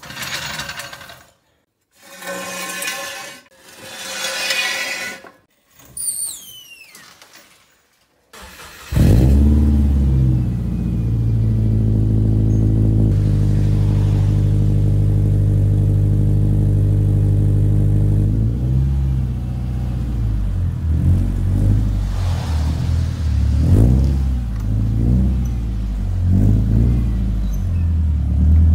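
After a few short bursts of noise, the 2007 Subaru Impreza 2.5i's 2.5-litre flat-four starts about nine seconds in, heard through its new stainless cat-back exhaust. It idles steadily, its note stepping down a few seconds later. From about halfway on the engine note rises and falls as the car is moved out of the garage.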